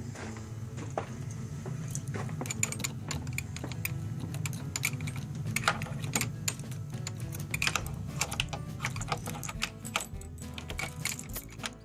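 Background music with a steady low bass line, overlaid by many quick, sharp clicks.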